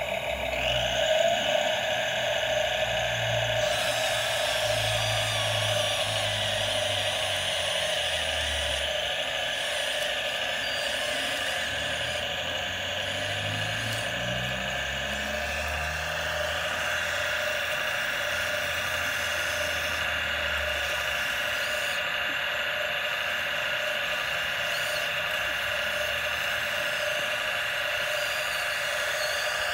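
Huina radio-controlled excavator's small electric motors and gearboxes whining steadily as the boom, arm and bucket work and the upper body swings round; the pitch of the motors shifts now and then.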